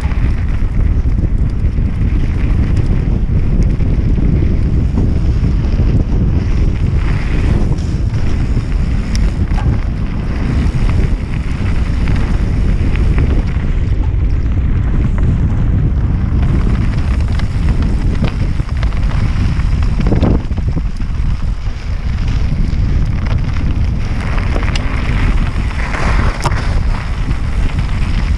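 Wind buffeting the microphone of a helmet-mounted camera on a mountain bike riding fast down a dirt trail, with the rumble of the tyres on the dirt. Brief louder rough patches rise a few times.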